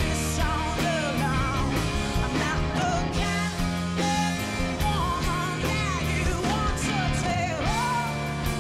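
Live rock band playing, with a woman singing lead over electric bass guitar and drums.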